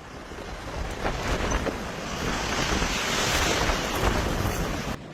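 Steady rushing of strong wind on the microphone, swelling a little, then cut off suddenly near the end.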